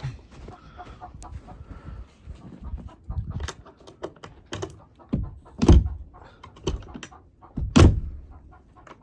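Hens clucking, with a run of irregular clicks and knocks and two heavy thumps past the middle.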